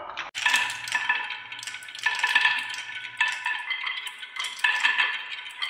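Many glass marbles rolling and clattering down wooden marble-run tracks: a dense, continuous stream of clicks and clinks as they knock against the wood and each other, with a brief drop in sound just after the start.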